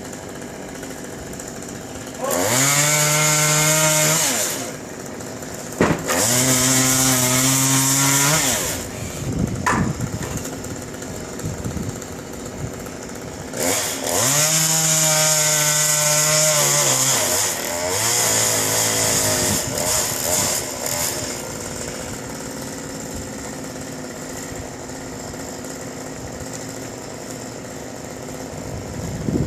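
Chainsaw idling and then revved to full throttle four times, each burst a few seconds long with the pitch climbing and holding high before it drops back to idle, as it cuts wood in tree removal work.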